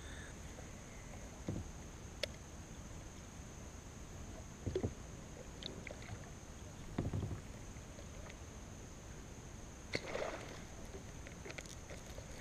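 Kayak paddle strokes pulling through calm river water, four strokes spaced two to three seconds apart, over a steady faint high-pitched tone.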